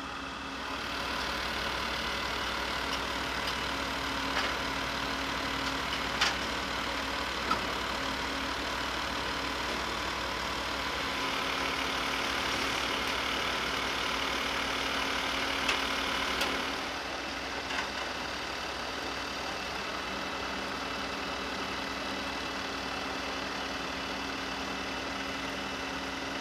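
Flatbed tow truck's engine running steadily, louder for about the first two-thirds while the bed controls are worked, with a few sharp metallic clanks.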